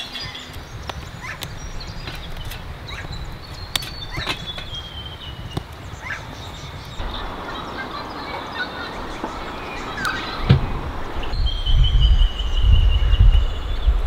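Birds chirping, with a long, slightly falling whistle near the end, over wind rumbling on the microphone that grows stronger in the second half.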